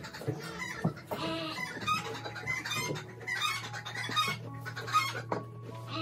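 Chickens clucking in short, repeated calls, over a low steady hum that begins about two seconds in.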